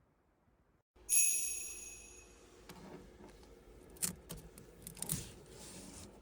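A high metallic chime rings out suddenly about a second in and fades over a second or so, followed by several sharp clicks and knocks.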